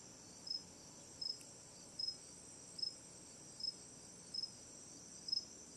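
Faint crickets chirping outdoors, one short high chirp about every three-quarters of a second, over a steady high insect trill.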